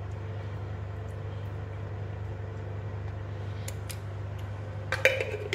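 A steady low hum in the kitchen, with a few faint clicks, then a short clatter of a spoon knocking against the cooking pot near the end.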